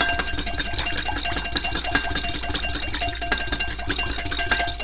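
Wire whisk beating an oil, lime and honey dressing in a glass bowl to emulsify it: a fast, even run of metal clicks against the glass, with a faint ringing from the bowl.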